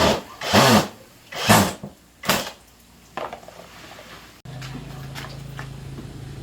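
Four loud knocks and clatters in the first two and a half seconds, typical of parts and tools being handled on a washing machine repair bench. A few fainter ticks follow, then a steady low hum starts abruptly about four and a half seconds in.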